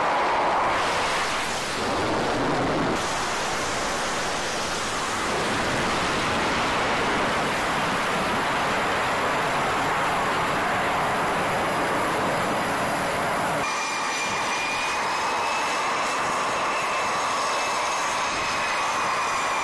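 F/A-18 Super Hornet jet engines running at high power for catapult launches, a loud steady roar. After a sudden change about two-thirds through, a high engine whine with several steady tones joins the roar, bending up a little and back down.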